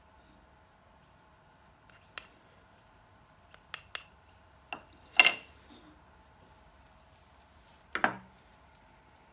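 Wooden clacks and taps as small wooden handle pieces and a hand tool are handled and set down on a wooden workbench. There are a few light taps in the first few seconds, the loudest knock about five seconds in and another about eight seconds in, over a faint steady hum.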